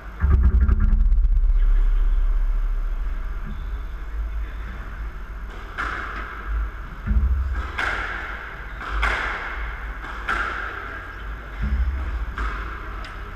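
A squash ball struck by a racket and hitting the front wall again and again, a sharp crack with a short echo about every second and a half, as a lone player knocks up. A heavy low rumble comes at the start, before the hits.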